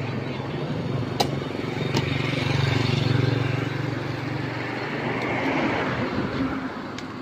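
A motor vehicle's engine passing close by, its low hum swelling to a peak about three seconds in and fading away, with a few sharp clicks of plastic containers being handled.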